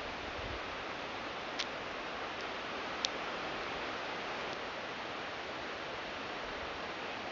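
Steady outdoor background hiss with two brief sharp ticks, about one and a half and three seconds in.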